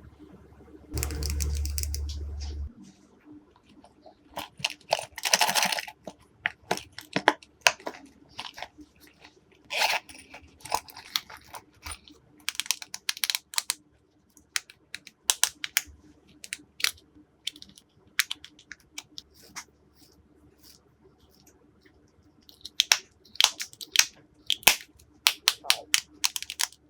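Glossy slime being squeezed, folded and stretched by hand, giving irregular sticky clicks, pops and crackles in clusters. A short stretch of low hum and hiss about a second in.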